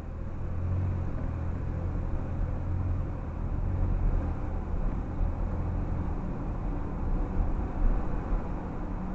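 Car engine and road rumble heard from inside the cabin, growing louder about half a second in as the car picks up speed, then running steadily.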